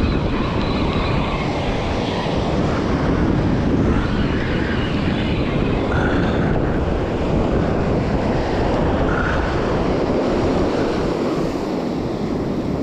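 Steady wind rumbling on the microphone, with surf washing on the beach.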